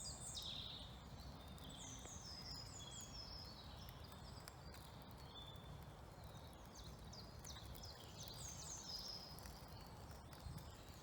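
Birdsong: several small birds singing at once, a faint chorus of quick falling chirps and trills, over a low steady rumble.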